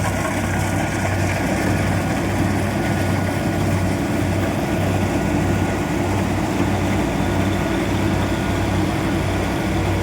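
Kubota combine harvester running steadily, its diesel engine droning at an even pitch with no change in speed.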